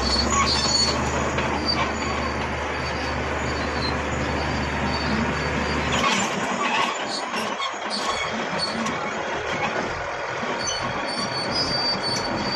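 Shantui SD16 crawler bulldozer working, its engine running under scraping, squealing steel tracks. The low engine drone drops away about halfway through, while the metallic squealing carries on.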